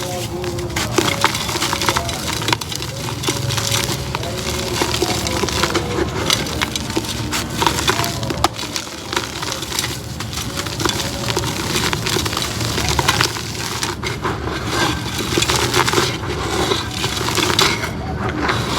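Pink concrete pot crumbling, a continuous run of small dry cracks and crunches as the pieces break apart.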